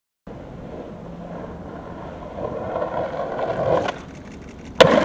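Skateboard wheels rolling on concrete, growing louder, then dropping off for about a second. A single sharp clack of the board near the end.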